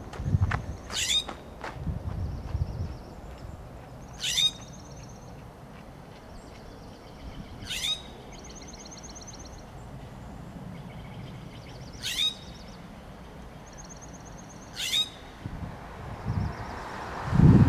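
California scrub jay giving five harsh, scratchy downslurred scold calls, each brief and spaced a few seconds apart. A faint, rapid, high twitter sounds between the calls.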